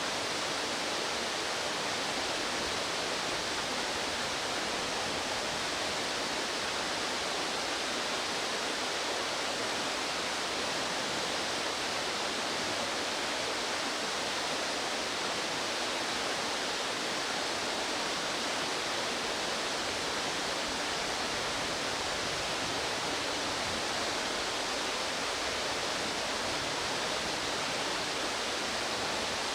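Steady rush of a fast mountain stream, an even hiss of running water with no change throughout.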